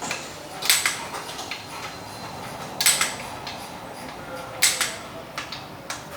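Torque wrench ratcheting on the crankshaft main bearing cap bolts: short clusters of sharp metal clicks about every two seconds.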